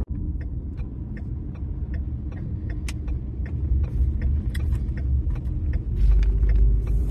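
Road noise inside a moving car: a steady low rumble of tyres and engine, heavier near the end, with scattered light clicks and ticks.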